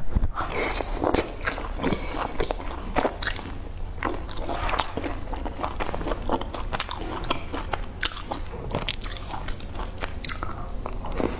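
A person biting and chewing sauce-soaked food, with a dense, irregular run of wet smacks and sharp clicks from the mouth.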